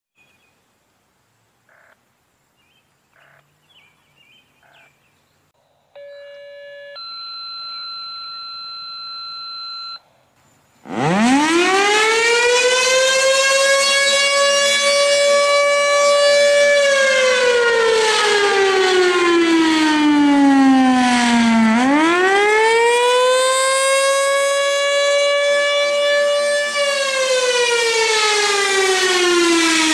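Federal Signal Thunderbolt 1000 civil defense siren winding up about eleven seconds in from a low growl to a loud steady tone, then falling and rising again in a slow wail. A steady electronic tone plays for a few seconds before it starts.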